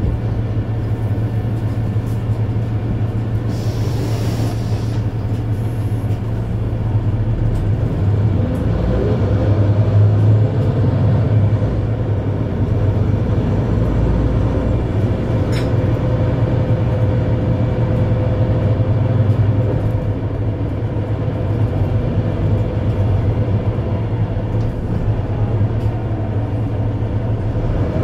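Mercedes-Benz Citaro C2 Ü Hybrid bus's diesel engine idling steadily with the bus at a standstill, a deep hum heard inside the passenger compartment. A faint rising whine comes in about nine seconds in and again near the end.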